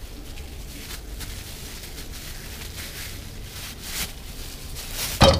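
Low steady hiss of olive oil heating in a saucepan on a gas stove, with faint handling clicks. A sudden loud hit about five seconds in as a lump of ground beef drops into the hot oil, starting it sizzling.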